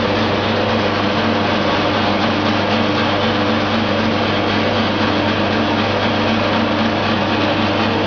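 Rotary brush glass-bottle washing machine running: a steady low motor hum under the even whir of brushes spinning inside the glass bottles.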